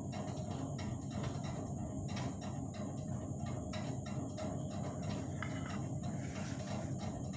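A knife cutting through a soft cake on a plate: light, irregular clicks and taps, a few a second, over a steady low hum and a faint high whine.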